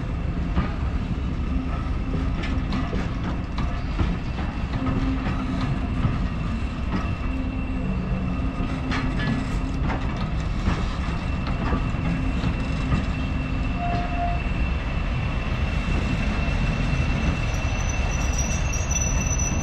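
A diesel-hauled passenger train rolls past: coach wheels clickety-clack over rail joints with scattered knocks, over the steady rumble and note of a Class 37 locomotive's English Electric V12 diesel. A steady high whine joins about halfway through, and the sound grows a little louder toward the end as the locomotive nears.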